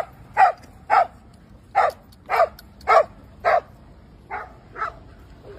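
A dog barking in play: about nine short, sharp barks, roughly two a second, the last two fainter.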